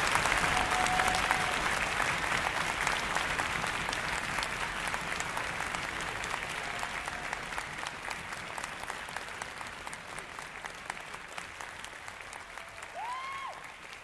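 Concert-hall audience applauding after an orchestral performance, the clapping slowly dying away. A short rising-and-falling whoop is heard about a second before the end.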